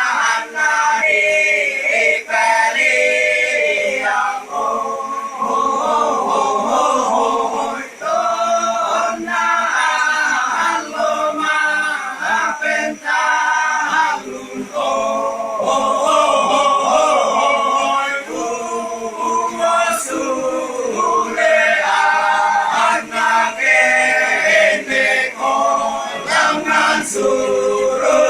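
Choir singing a cappella in the Torajan badong chant style, men's and women's voices together, with the sung notes changing about every second.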